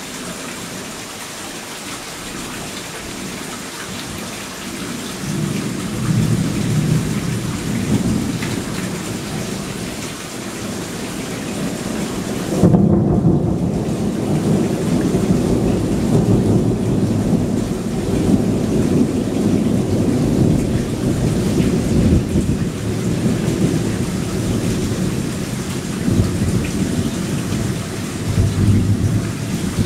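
Heavy rain falling steadily with thunder rolling underneath: a low rumble builds about five seconds in, then a louder clap breaks about twelve seconds in and long rolling rumbles follow.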